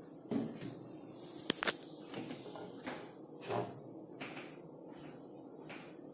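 Faint kitchen handling noises: two sharp clicks about a second and a half in, then a few soft scrapes and knocks as the oiled frying pan is moved on the electric coil hob.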